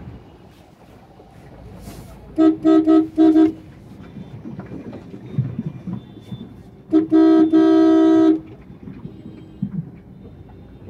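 Car horn honking in traffic: four quick toots, then a few seconds later a long blast lasting over a second, over a steady low hum of traffic.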